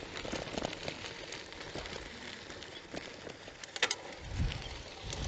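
Bicycle rolling over a rough dirt road: steady tyre noise with small rattles and clicks from the bike, and a few sharper clicks about four seconds in.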